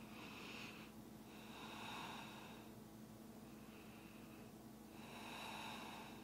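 A person breathing slowly and softly, a few long breaths in and out, faint over quiet room tone.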